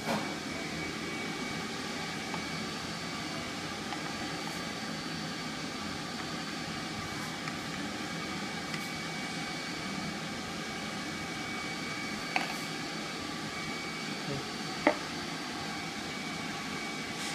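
Steady café background hum with faint high steady tones from machinery, and two sharp knocks toward the end as a ceramic cup and a steel milk pitcher are set down on a stone counter.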